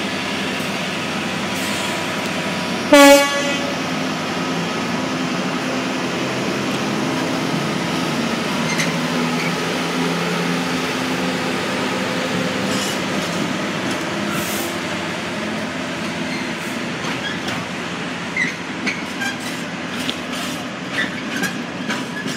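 Freight train passing: the locomotive sounds one short, loud horn blast about three seconds in, then the locomotive and its container wagons rumble steadily past. Wheel clicks over the rail joints come in near the end.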